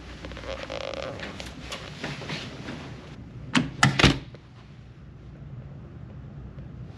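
Ship's cabin door with a key-card lock being opened and pulled shut: a few light clicks of the handle, then two sharp knocks as the door swings closed and latches, about halfway through. A low steady hum follows.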